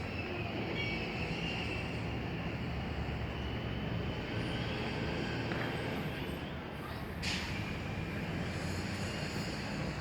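Steady low rumble of city background noise, with a faint hum and a single short click about seven seconds in.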